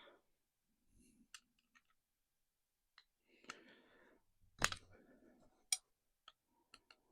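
Faint, scattered clicks and knocks at uneven intervals as a door handle is fitted and its screws are tightened, with a sharper knock a little past halfway.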